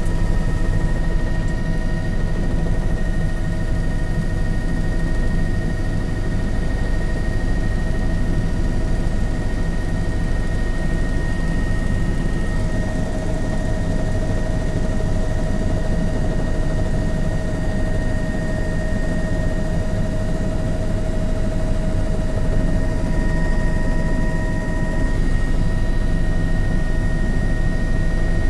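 News helicopter's rotor and engine running steadily, heard from on board: a continuous low rumble with several steady high-pitched whine tones over it.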